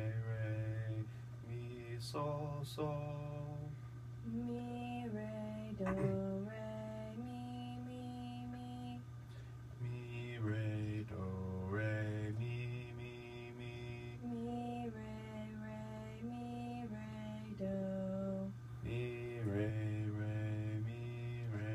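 Voices singing solfège exercises: held notes, each about a second long, stepping up and down in pitch, with a steady low hum underneath.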